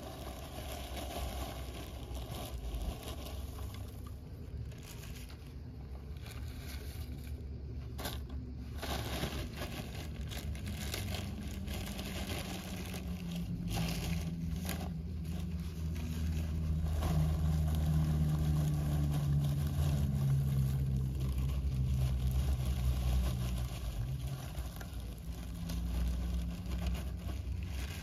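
Lump charcoal tipped out of a plastic sack: the bag crinkles and rustles while the charcoal pieces clatter and scrape onto a pile. A low engine hum swells through the middle, louder than the rest, and fades again.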